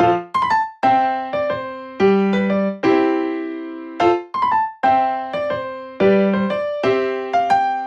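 Background music: a gentle piano or electric-piano melody of struck notes that ring out and fade, the phrase repeating about every two seconds.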